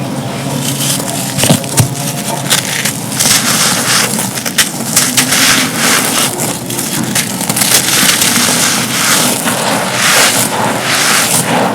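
Soft, dusty, gritty moulded cups being crumbled and crushed in both hands: a dense, continuous run of crackling and crunching with sharp snaps mixed in.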